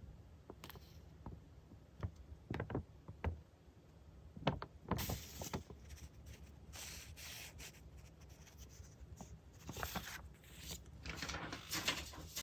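Hands handling paper goods and plastic packaging on a desk: scattered light taps and clicks, with rustling about five seconds in and again near the end.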